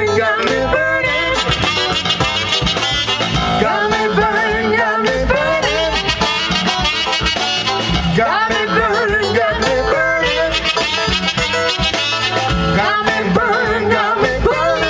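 Live band playing an instrumental break, with saxophones carrying a wavering melody over electric bass and drums.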